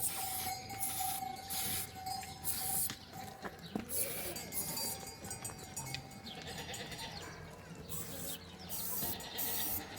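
A flock of goats and sheep bleating, mixed with repeated short scuffling noises.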